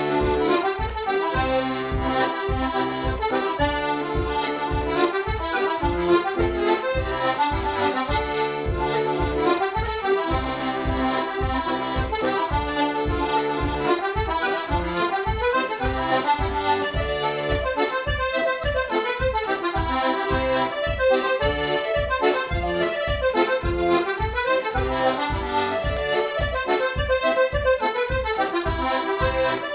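Paolo Soprani 'Pepperpot' two-row button accordion playing a traditional reel solo: a fast, busy melody over an even, rhythmic pulse of bass and chord buttons.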